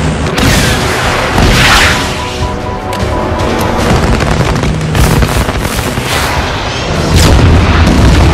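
Action-film sound mix: dramatic score over heavy booms and gunfire as a four-engine turboprop gunship fires on a low pass, with the music and explosions swelling about seven seconds in.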